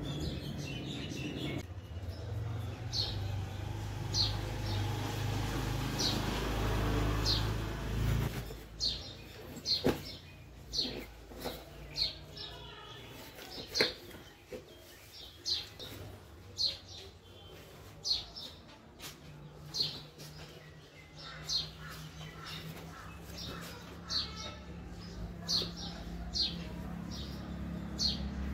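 Short high chirps repeating about once a second, like a small bird calling, over a low steady hum that stops about eight seconds in. A couple of sharp knocks sound between the chirps.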